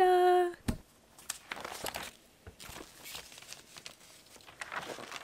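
A woman's voice trails off on a long held note, then a sharp click. After that comes faint, irregular rustling and tapping of paper as a thick stack of printed notes is handled and written on.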